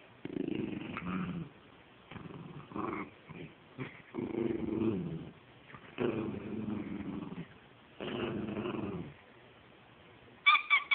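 Small rat terrier–Chihuahua mix play-growling while tugging on a stuffed toy, in five low bouts of about a second each with short pauses between. Near the end come three or four short, sharp, high-pitched sounds, louder than the growls.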